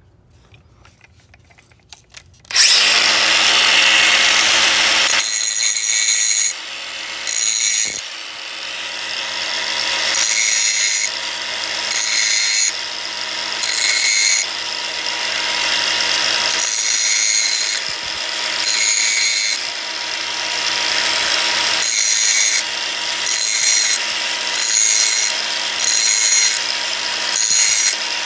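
Drill Doctor 500X bit sharpener's motor starts a couple of seconds in and runs with a steady whine. A drill bit is ground against its wheel in repeated strokes, the grinding rising and falling about every one and a half to two seconds.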